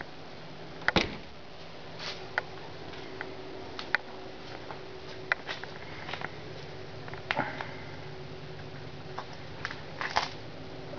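Steady background hum with scattered clicks and light knocks from a handheld camera being carried around a car; the loudest is a heavy thump about a second in, with another cluster of knocks near the end.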